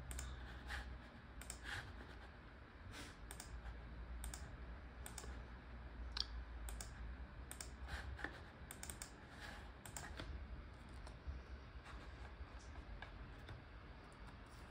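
Faint, irregular clicks of a computer keyboard and mouse being worked, over a low steady hum.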